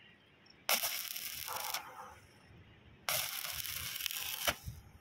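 Stick-welding arc crackling and sizzling as a rod welds a joint on a steel pipe frame, in two bursts of about a second each, the second starting about two seconds after the first ends.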